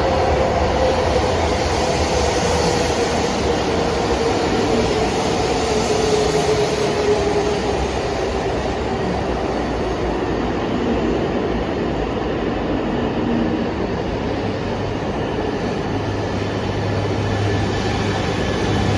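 Shinkansen train running steadily, with a motor whine that slowly falls in pitch over the first half.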